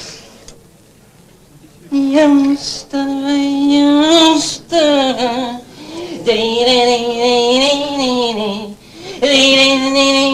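A solo voice singing a melismatic, belly-dance style melody with long, wavering held notes, starting about two seconds in and running in several phrases.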